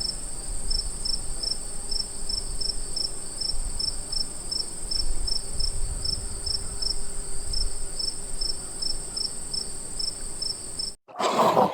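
Crickets chirping in an afternoon field: a steady high trill together with a pulsing chirp about three times a second. Near the end it cuts off suddenly, and a brief loud animal bark or growl begins.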